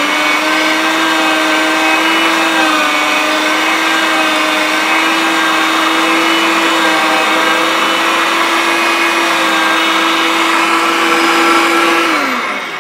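Anko 300 W electric meat mincer running loud and steady while grinding chicken, a motor whine that dips slightly in pitch a few seconds in. Near the end it is switched off and the whine falls away as the motor spins down.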